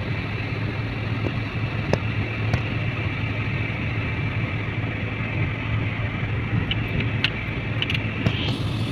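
Steady road and engine noise inside a moving car's cabin: a constant low hum under even road rumble, with a few light clicks.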